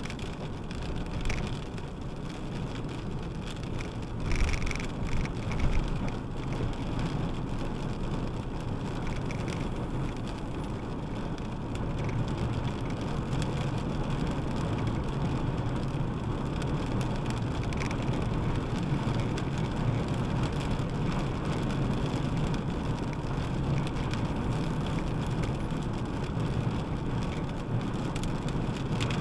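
Car driving on a country road, heard from inside the cabin: steady tyre and road noise with light rain hitting the windshield. A few sharp knocks come about four to six seconds in.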